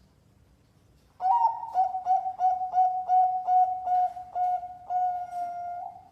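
Zebra dove (perkutut, Bangkok strain) singing one song: starting about a second in, a run of about a dozen short clipped coos on one pitch, each with a quick dip, ending in a longer held note.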